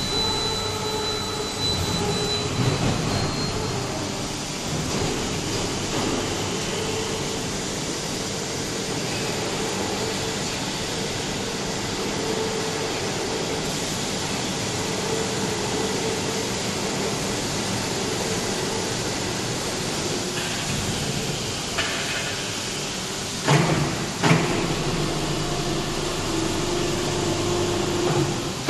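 Drum wood chipper running steadily with a continuous mechanical hum and hiss, with two sharp knocks about three quarters of the way through.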